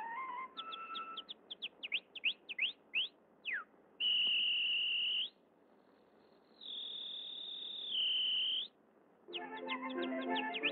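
Cartoon canary chirping: a run of quick rising and falling whistled chirps, then two long, high, steady whistle notes. Music comes back in near the end.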